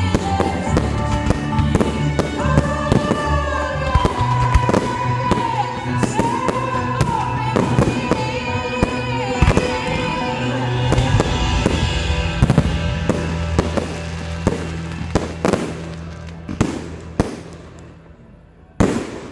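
Aerial fireworks bursting in rapid, dense succession over a music track with a sung melody. The music fades away over the last few seconds, and one final loud bang comes just before the end.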